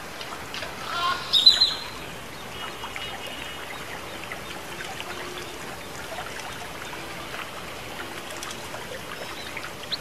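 Water trickling steadily over a tiered fountain, with a brief bird call about a second and a half in.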